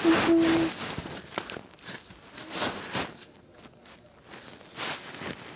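Cat rubbing its fur against a small camera's microphone: close, scratchy rustling in several bursts that come and go.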